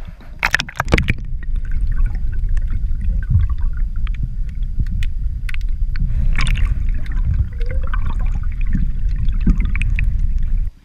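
Water rushing and gurgling past a camera held underwater beside a paddled kayak, heard muffled as a steady low rumble. There are splashes about half a second in as the camera goes under, and the rumble cuts off suddenly near the end as it comes back out of the water.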